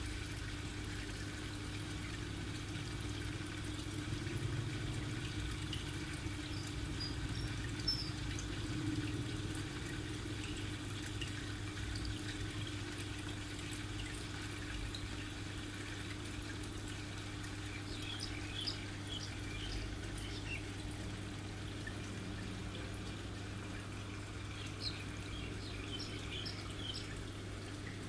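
Water trickling in aquarium filters over a steady low hum, with several faint, short high chirps in the second half.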